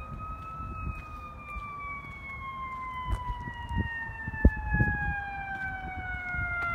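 Fire engine siren sounding in the distance as FDNY Engine 238 responds: one long wail whose pitch falls slowly and steadily. Under it runs a low rumble, with a single sharp thump about four and a half seconds in.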